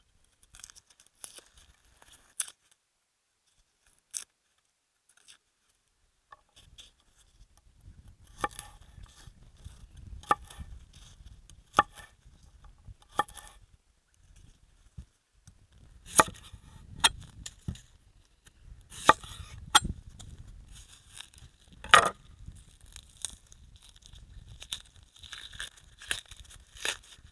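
Hand food preparation: irregular tearing and crinkling with scattered sharp knocks, sparse at first and busier from about a quarter of the way in.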